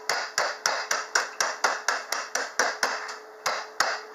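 Wooden rolling pin beating a zip-top bag of pretzel sticks against the countertop, crushing the last big pieces: a quick run of sharp knocks, about four a second, with a brief pause about three seconds in.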